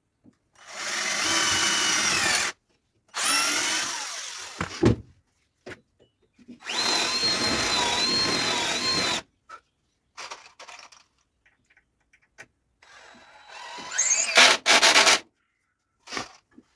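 Electric drill running in four bursts of about two seconds each, with short pauses between and a brief burst near the end. Its pitch shifts as it winds up and down with the trigger.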